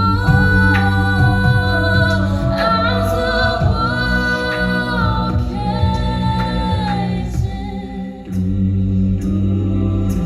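High school a cappella group singing: voices hold a low sustained chord while a higher line moves from note to note, with a brief drop in level a little past eight seconds.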